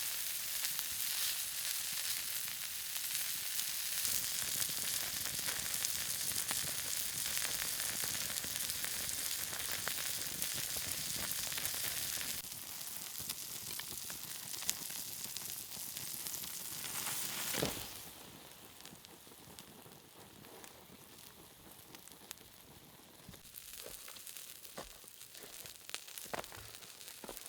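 Meat sizzling on a hot stone over a campfire, a dense steady hiss. About two-thirds of the way in there is a sharp knock, and the sizzling drops away, leaving faint crackles.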